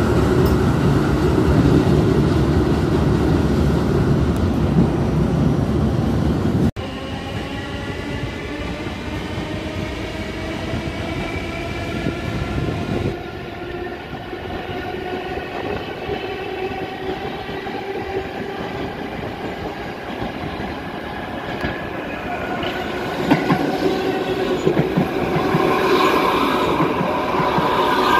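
New York City subway trains. One rushes past close by with a loud, even rumble of wheels on track. After a cut, an electric train's motors whine in several tones climbing steadily in pitch as it accelerates, and near the end another train comes in and runs past with rising wheel noise.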